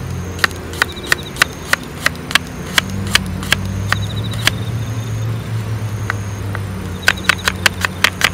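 Knife slicing a garlic clove on a wooden cutting board: sharp knocks of the blade hitting the board, two or three a second, pausing around five seconds in and then coming faster near the end. A low steady hum runs underneath.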